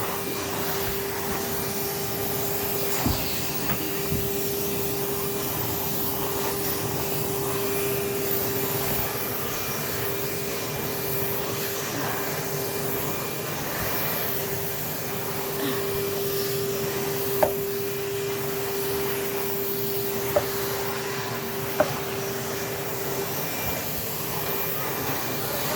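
Numatic Henry cylinder vacuum cleaner running steadily while vacuuming, a constant motor hum with one steady tone. A few short, sharp knocks stand out along the way.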